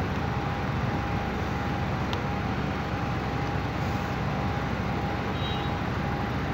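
A steady low background drone with a thin constant whine above it, and one small sharp click about two seconds in.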